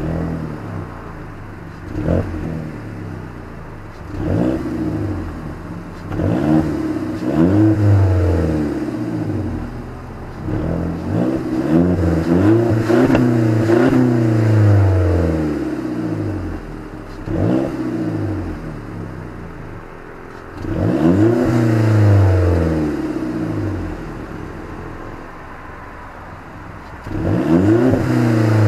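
VW Passat B6 engine revved repeatedly through its dual-outlet exhaust: about eight rev blips that rise and fall back to idle, two of them held longer, with idle in between.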